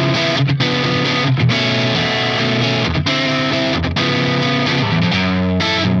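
Soloking MT-1 Classic electric guitar with Pulse Screamer X3 humbuckers, played with a distorted drive tone. The notes change more quickly near the end.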